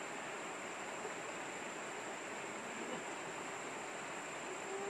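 Shallow river rushing over a rocky riffle: a steady, even rush of water.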